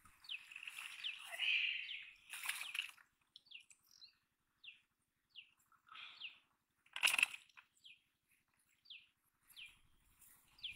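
A bird calling over and over in short, high chirps, each a quick falling note, about one a second. Two brief noisy bursts come about two and a half and seven seconds in, the second the loudest sound.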